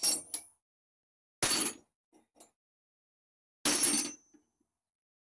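Steel spanners clinking and clattering against each other as a hand rummages through a pile of them. The sound comes in separate short clatters, the two loudest about a second and a half in and again about two-thirds of the way through.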